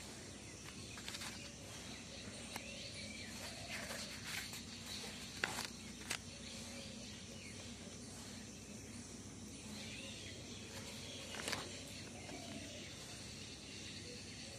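Faint steady background noise with a few short, sharp paper sounds from spiral-notebook pages being turned and handled. They come twice close together in the middle and once more near the end.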